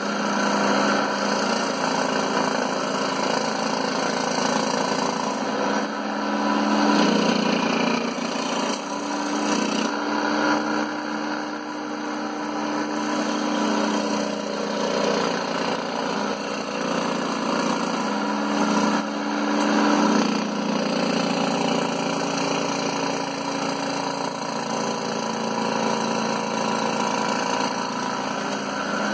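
Scroll saw running steadily, its blade cutting through MDF as the piece is fed by hand, a constant motor hum that swells slightly now and then.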